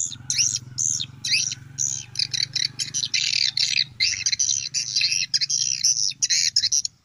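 Swiftlet call sound played from a phone speaker to lure swiftlets to a swiftlet house: a dense, rapid run of high twittering chirps with brief gaps.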